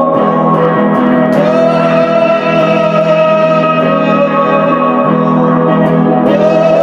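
Music of long held notes over a steady drone, with the pitch shifting about a second and a half in and again near the end.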